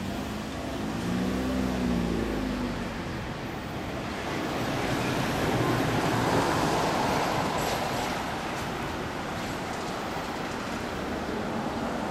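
Road traffic going by: a vehicle's engine note rises and falls in pitch in the first few seconds, then a vehicle passes, swelling in loudness about six seconds in and fading again.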